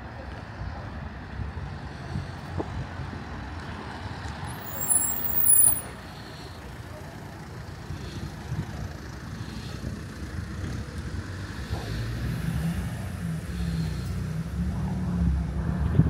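Town street traffic with a low steady rumble, a brief high squeal about five seconds in, and a car engine growing louder as it approaches near the end.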